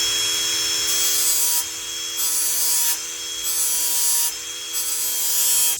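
Angle grinder running at full speed, its abrasive disc grinding the back edge of a power rotary scissor blade's teeth in repeated passes: four spells of harsh grinding between quieter running, then it cuts off suddenly.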